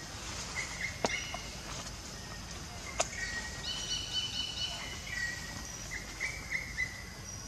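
Birds chirping and calling in forest, short whistled notes with a quick run of repeated higher notes about four seconds in, over a steady background hiss. Two sharp clicks stand out, about one and three seconds in.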